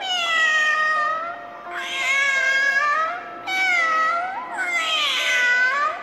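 Domestic cat meowing: four drawn-out meows one after another, the third rising and falling in pitch, over soft background music.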